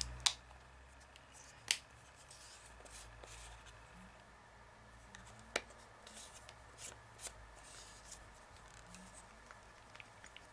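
Faint, irregular clicks and taps of a small plastic acrylic paint bottle and a fine paintbrush being handled on a work table, over a low steady hum.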